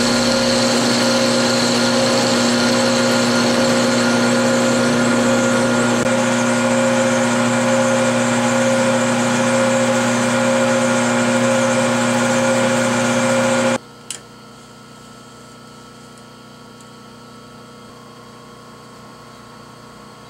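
Metal lathe running with a steady whine from its motor and gearing while the end of a metal bar is faced and drilled. The sound cuts off suddenly about 14 seconds in, leaving a faint low hum and a single click.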